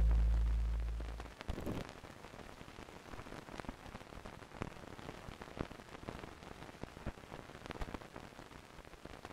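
The music's last low note fades out over the first second and a half, leaving a faint hiss scattered with crackles and pops, an old-film surface-noise effect.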